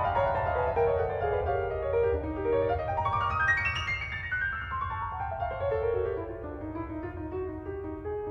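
Piano music: quick runs of notes cascading downward, a fast rising run about three seconds in, then falling phrases that slow and grow quieter toward the end.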